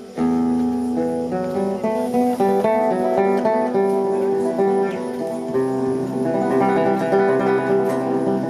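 Music on a plucked string instrument: a melody of short notes over held low notes. It comes in suddenly just after the start, and the bass note changes about halfway through.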